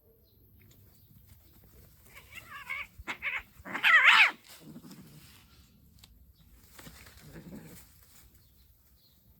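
Domestic cats fighting: a few wavering yowls between about two and four seconds in, the loudest just after four seconds, followed by low growls.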